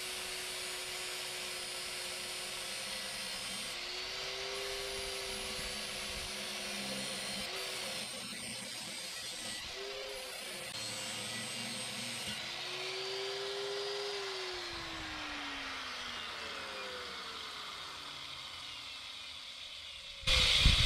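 Corded electric angle grinder with a flap disc running against a steel exhaust-pipe tab, its pitch dipping each time it is pressed in and then winding down with a falling pitch after it is switched off. The flap disc makes little headway on the tab. A burst of loud clattering comes at the very end.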